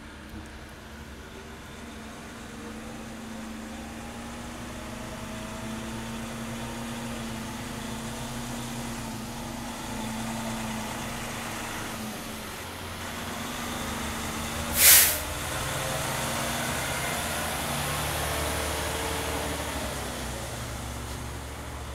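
Fire truck's engine running as it pulls up slowly, growing louder, with one short loud hiss of its air brakes about two-thirds of the way through.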